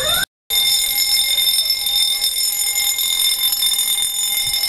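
Building fire alarm sounding a steady, high-pitched tone during an evacuation drill, with a brief dropout just after the start.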